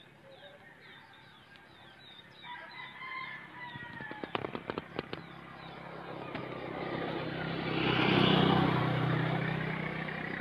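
A rooster crows amid repeated small bird chirps, with a quick run of sharp clicks about four seconds in. Then a motorcycle engine approaches, growing louder and loudest about eight seconds in, and keeps running.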